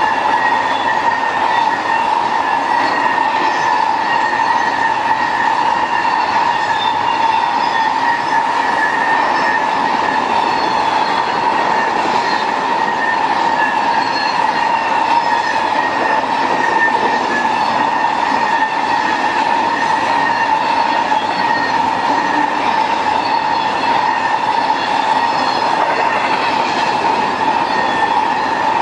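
BNSF intermodal freight train's double-stack container and trailer cars rolling past at speed: a loud, steady rush of wheels on rail, with a continuous high-pitched squeal from the wheels.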